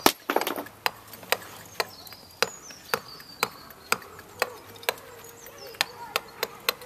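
Mason's mallet striking a chisel on stone, sharp knocks about two a second, with a quick cluster of blows near the start.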